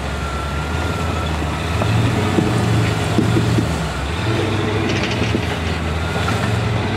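Jeep 4x4's engine running steadily at low revs as it crawls over boulders, with a few sharp clicks about two to three and a half seconds in.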